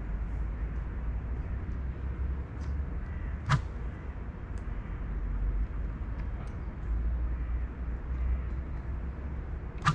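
Outdoor bankside ambience: a steady low rumble with faint high chirps, broken by two short sharp clicks, one about three and a half seconds in and one at the very end.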